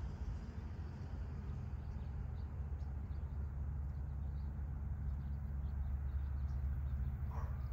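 Low, steady outdoor background rumble with faint, scattered bird chirps over it, and one short rising call near the end.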